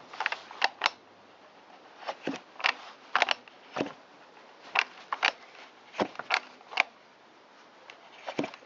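Shindaiwa 360 chainsaw's recoil starter pulled by hand about seven times, each pull a quick run of sharp clicks and rope rasp. The two-stroke engine turns over with great compression but does not fire.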